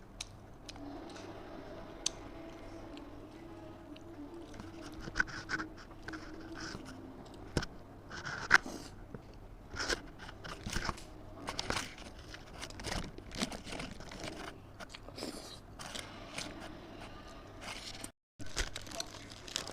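Close-up eating sounds: biting into and chewing a Ramly beef burger, with irregular wet chewing and sharp crackly clicks that come thicker after the first few seconds. The sound cuts out briefly near the end.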